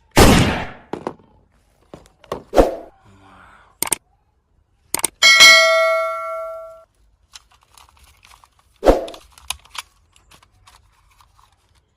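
A series of sharp clanks and knocks, including one metallic ding that rings for about a second and a half midway through.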